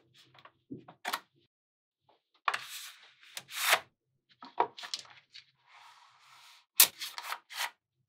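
Small magnetic balls and stiff board panels handled by hand: short scraping rubs as a board piece slides into place, and several sharp clicks and snaps of magnet balls meeting, the loudest near the end.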